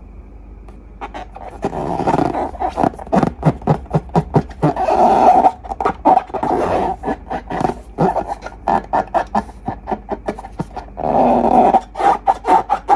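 Slime being squeezed and worked by hand: wet squelching with rapid sharp pops and crackles of trapped air, swelling into longer squishes a few times.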